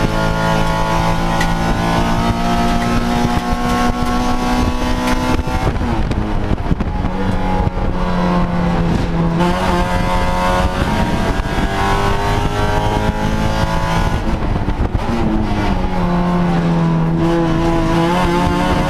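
Honda Civic Si HPD touring car's four-cylinder engine at race pace, heard from inside the stripped cabin. Its pitch climbs slowly, drops sharply about six seconds in and again about fourteen seconds in, and climbs again after each drop.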